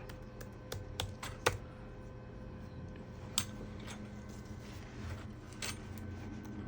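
Irregular clicks of a laptop keyboard being typed on: a quick cluster near the start, then a few single clicks spaced out.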